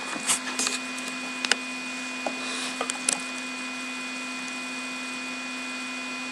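Steady low electrical hum with a few light clicks and short rustles in the first three seconds, then only the hum.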